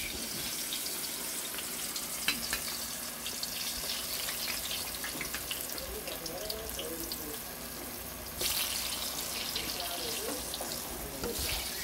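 Breadfruit slices deep-frying in hot oil in a wok: a steady sizzle that starts as they are lowered in and gets louder about eight and a half seconds in.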